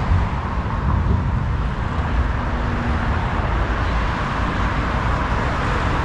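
Steady city road traffic: cars running past.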